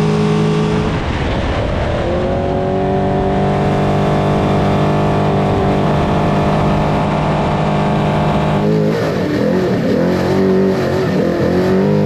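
Trophy truck engine running hard at high speed. Its steady pitch breaks about a second in and climbs again, then from about nine seconds in it rises and falls repeatedly as the throttle comes on and off.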